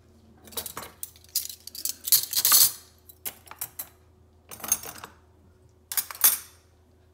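Stainless steel forks and spoons clinking as they are set down and sorted into a plastic cutlery tray, in several short bursts of rattling, loudest about two and a half seconds in.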